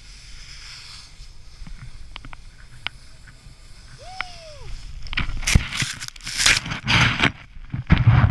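Snowboard sliding and carving on snow, with wind on a helmet-mounted camera; from about five seconds in come loud bursts of scraping snow, and near the end the rider tumbles into the snow. About four seconds in there is a brief whistle-like tone that rises and falls.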